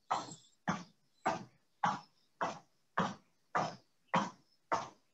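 A person's short, forceful exhalations in a steady rhythm, about three every two seconds, each a brief rush of breath that fades quickly, during a brisk standing warm-up exercise.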